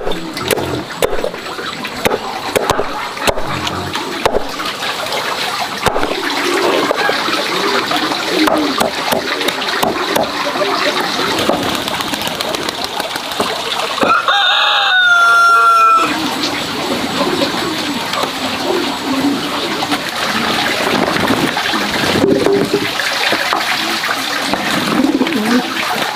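A rooster crows once, a single call of about two seconds roughly midway through, over a steady noisy background with scattered small knocks.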